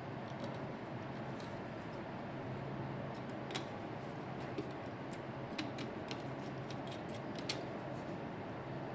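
Scattered light clicks and ticks, irregular and some louder than others, over a steady low hum.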